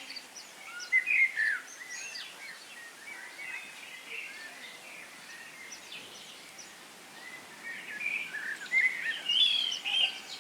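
Small birds chirping, a busy cluster of quick calls about a second in and again near the end, with scattered calls between over a faint steady hiss.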